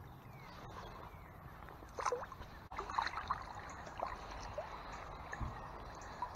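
Stream water running steadily, with a few short splashes and sloshes about two, three and four seconds in as a rainbow trout is handled in a landing net at the water's surface.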